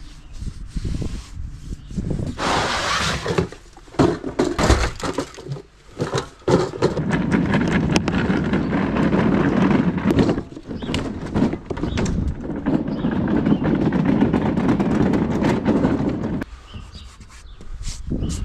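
Wheels of a rolling Stanley toolbox trolley rumbling and rattling over asphalt for about ten seconds. It stops shortly before the end. Before it come a few scrapes and a brief hiss.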